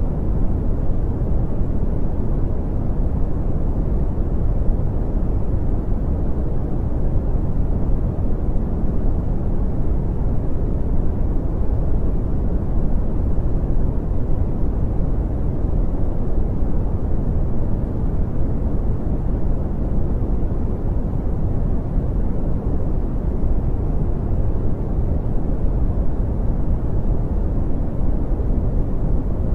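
Steady brown noise: an even, deep rumbling hiss with most of its energy in the low end and little treble, unchanging throughout.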